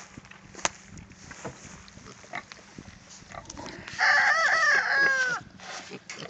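Four-week-old piglets rooting and shuffling with scattered small clicks and rustles, then a loud squeal about four seconds in that lasts over a second and ends in a few quick falling squeals.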